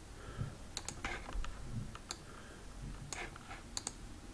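Several faint, sharp clicks of a computer mouse and keyboard, some in quick pairs.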